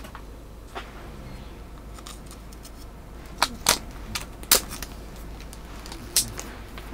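Sharp plastic clicks and snaps of a small reel being fitted onto a smelt ice-fishing rod and handled: about six separate clicks, most of them bunched in the middle.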